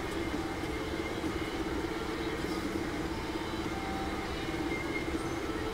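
Steady background hum and rumble, unchanging throughout, with no distinct impacts.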